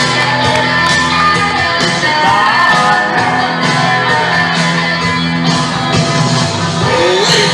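Loud rock music with a singing voice, steady throughout.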